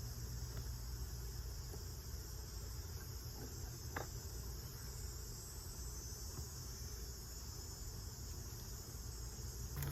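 Steady, high-pitched chirring of outdoor insects, with a low rumble underneath and a single click about four seconds in.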